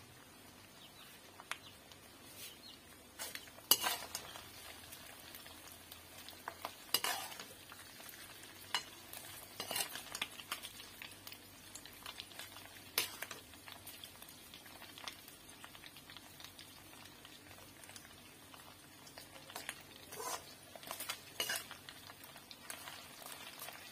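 Food frying with a faint sizzle in oil in a metal kadhai, stirred with a metal perforated skimmer spoon that scrapes and clinks sharply against the pan now and then.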